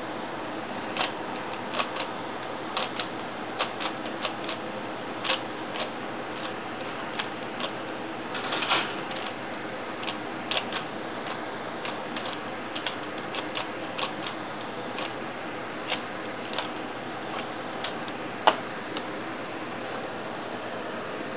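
A 3x3 Rubik's cube being handled and turned, its plastic layers clicking in short, irregular runs over a steady background hiss, with a louder sharp knock near the end.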